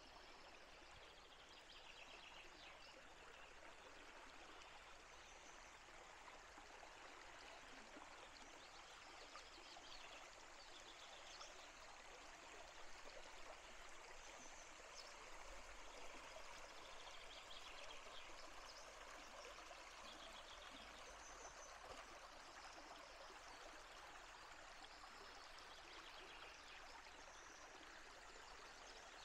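River water running in the Tarn gorge: a faint, steady rush of flowing water, with faint short high chirps every few seconds.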